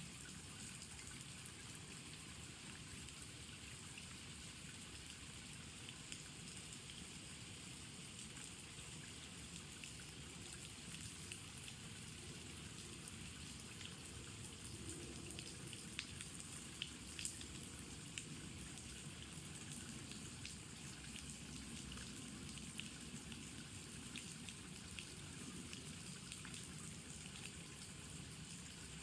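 Steady spring rain falling, a soft even hiss with individual drops ticking now and then; a few louder drips land about two-thirds of the way through.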